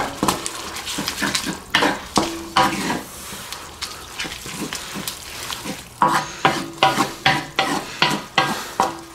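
Instant noodles and sauce sizzling in a hot cast iron wok while a wooden spatula stirs and scrapes them around the pan in quick, irregular strokes, some with a short squeak. This is the stir-fry stage, cooking the noodles in their sauce until it thickens.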